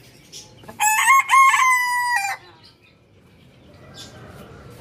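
Rooster crowing once, a single crow of about a second and a half that steps up in pitch and is then held.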